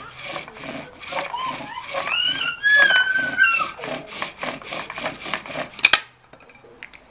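Bow drill in use: the wooden spindle rasps in the fireboard socket with each stroke of the bow, about three strokes a second, with high squeals rising over it in the middle. Near the end a sharp knock as the spindle pops out of the board, and the strokes stop.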